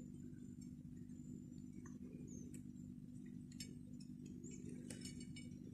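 Faint room tone: a steady low hum, with a few light clicks and two short high chirps.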